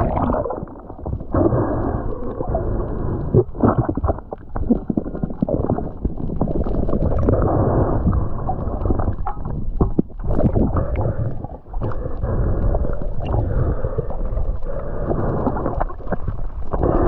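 Muffled rushing and gurgling of water around a camera in a waterproof housing while swimming, with short breaks and dips in level.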